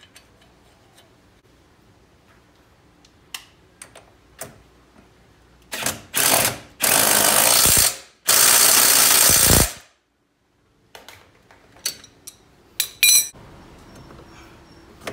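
Ratchet on a long extension running a bolt in, in a few short bursts and then two longer stretches of rapid clicking of about a second and a half each. Scattered tool clicks come before it, and a metallic clink rings out near the end.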